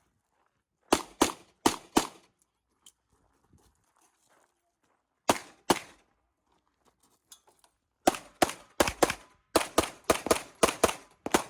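CZ Shadow 2 pistol firing a stage: four quick shots about a second in, a pair a few seconds later, then a fast string of about ten shots, mostly in pairs, starting about eight seconds in.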